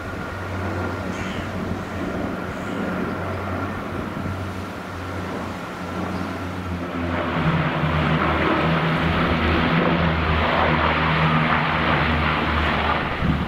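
ATR 42 twin-turboprop airliner flying overhead on approach: the steady drone of its engines and propellers, growing louder and rougher about seven seconds in.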